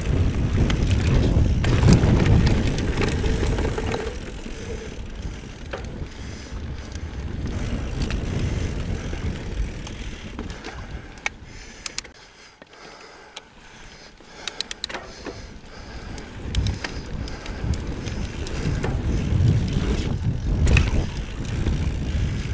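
Mountain bike descending a dirt singletrack, heard from the rider's camera: a steady rushing and rumbling of wind and tyres on the trail, louder at the start and again near the end, with a few sharp clicks and rattles from the bike about halfway through.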